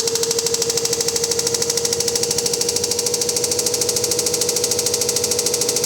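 Samsung WD106 washer-dryer spinning at high speed, near 1400 RPM: a fast, even knocking over a steady whine. The drum seems to be hitting something inside. The heating element has already been ruled out, and the spider and bearings are new.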